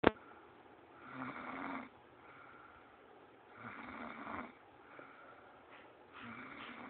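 A sleeper snoring: three slow, even snores about two and a half seconds apart, each lasting under a second. A sharp click at the very start.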